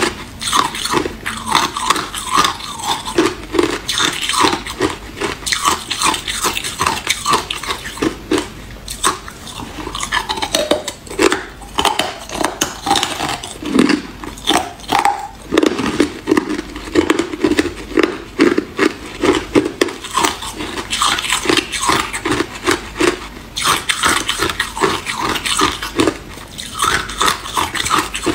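Hard clear ice cubes being bitten and chewed close to the microphone: loud crunching and cracking, several crunches a second, over and over.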